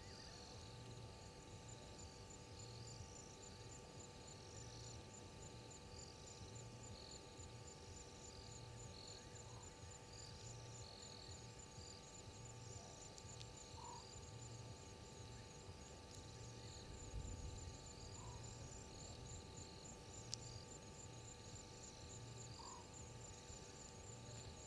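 Faint night insect chorus: a fast, even, high-pitched chirping with softer, irregular chirps beneath it. Under it run a steady electrical hum and a soft low throb about once a second.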